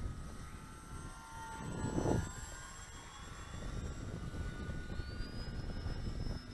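Electric RC airplane's brushless motor and propeller whining overhead with thin steady high tones, one tone climbing in pitch about five seconds in as the throttle changes. There is a louder low rush about two seconds in.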